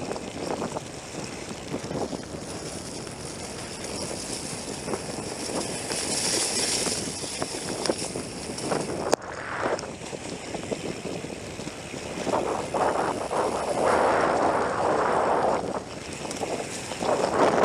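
Wind buffeting the microphone over the noise of a mountain bike riding a trail, swelling in gusts, with a single sharp click about nine seconds in.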